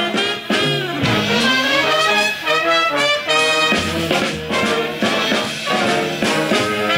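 Upbeat swing music with a brass section of trumpets and trombones playing, suited to Lindy Hop dancing.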